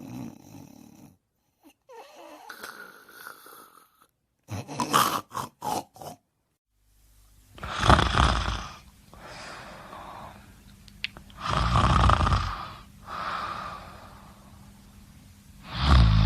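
A sleeping person snoring, in several short clips spliced together with abrupt cuts. In the last clip, loud snores come about every four seconds, with quieter breathing between.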